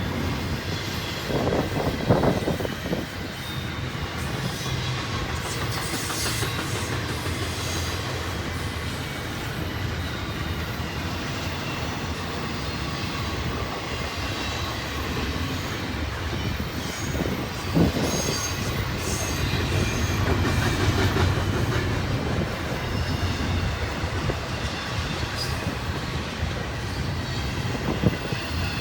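Union Pacific double-stack intermodal train rolling steadily past, its wheels rumbling and clattering over the rails, with a few louder knocks along the way.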